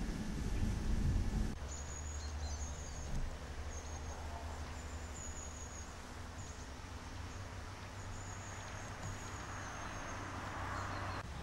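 A low train rumble cuts off abruptly about a second and a half in. A narrow-gauge steam locomotive then stands with a steady low hum, while birds chirp in short high notes. A hiss of escaping steam swells near the end.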